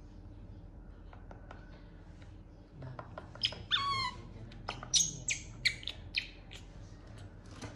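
Baby monkey sucking faintly at a milk bottle, then breaking into a run of loud, high-pitched squealing cries about three seconds in, the first a long cry falling in pitch, while it fusses for its milk bottle.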